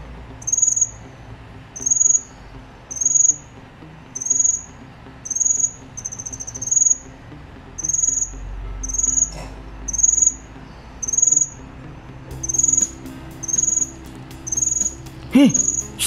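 Cricket chirping: a high, trilled chirp about half a second long, repeated roughly once a second. A short squeak near the end.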